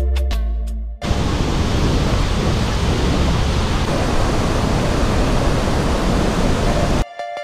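Roar of Iguazu Falls: a loud, steady rush of falling and churning water with no tones in it. It cuts in suddenly about a second in, after guitar music, and cuts off just as suddenly near the end, where synth music takes over.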